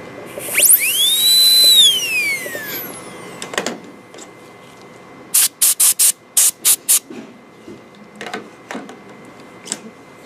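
High-speed air-turbine dental handpiece fitted with a 330 bur, whining as it spins up about half a second in, holding a high steady pitch, then winding down over about two seconds. A few seconds later comes a quick run of about six short hissing bursts.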